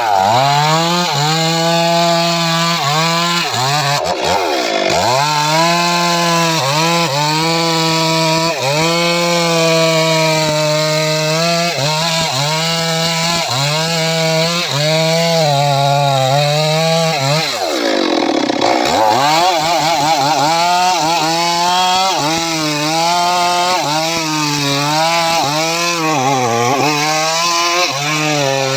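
Homemade 'srekel' chainsaw running hard while cutting sengon wood. Its engine pitch holds fairly steady under load and twice drops sharply and climbs back, about four seconds in and again around eighteen seconds in.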